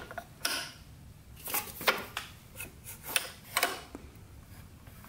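Light metallic clicks and rubs, about half a dozen short sounds spread over a few seconds, from the bare piston and connecting rod of a Suzuki RM125 two-stroke engine being moved by hand with the cylinder off.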